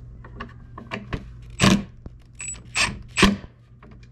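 Cordless impact driver running in three short bursts, tightening down the screws of a gas strut's mounting bracket into a plywood panel.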